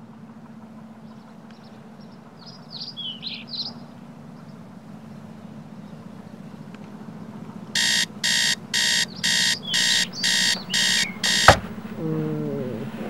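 iHome clock radio alarm beeping in a quick series of about eight beeps, two a second, cut off by a sharp click as it is hit to silence it. Before it, a few faint bird chirps; after the click, a short low sound that falls in pitch.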